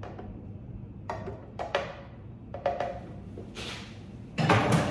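Scattered knocks and clunks of cans and kitchen things being handled at a counter, a few separate taps about a second apart and a louder thud near the end.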